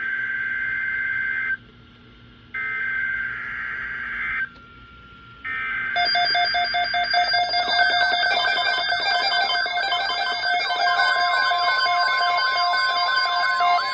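NOAA Weather Radio SAME header: three shrill bursts of warbling data tones, each about a second and a half, with short gaps between. About six seconds in, several weather alert radios start alarming at once, a loud jumble of pulsing beeps and warbling alarm tones, and a steady alert tone joins near the end.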